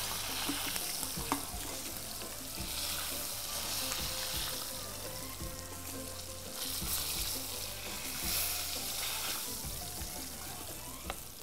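Pieces of hamour (grouper) sizzling in hot oil in a frying pan as they are handled with metal tongs, with a few sharp clicks of the tongs.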